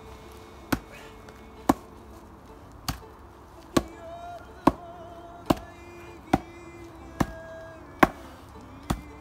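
A wooden stake being driven into the ground with a heavy log swung as a bushcraft mallet: ten sharp wood-on-wood knocks, evenly paced at a little more than one a second.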